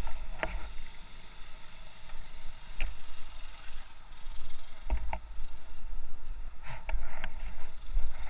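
Muffled low rumble with a few scattered knocks, recorded through a sealed waterproof action-camera housing as the camera wearer moves about.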